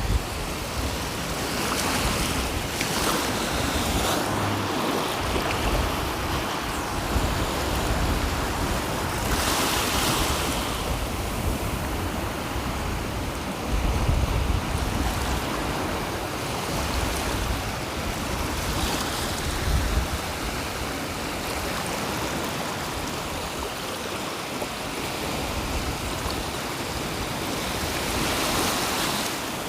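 Sea surf breaking and washing up the shore, rising in a fuller rush every several seconds, with wind gusting against the microphone.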